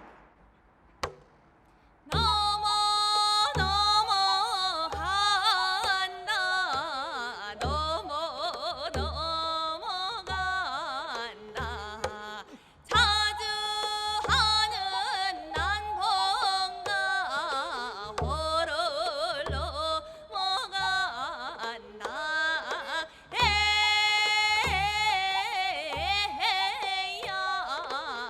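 Music in a Korean traditional (gugak) style starts about two seconds in, after a short click: a wavering, sliding melody over a steady low drum beat.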